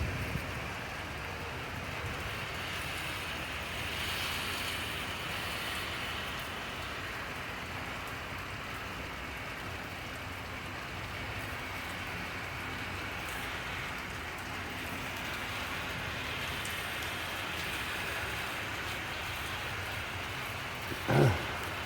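Steady rain falling and pattering on surfaces, an even hiss with no let-up. A brief louder low thump sounds near the end.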